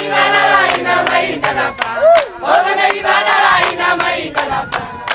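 A group of men and women singing together in a call-and-response style chorus, with sharp claps keeping time about twice a second.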